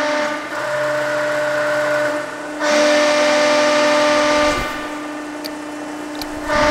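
Cincinnati 230-ton hydraulic CNC press brake being cycled: its hydraulic pump runs with a steady, many-pitched whine that swells louder for a second or two at a time and falls back in between, about three times.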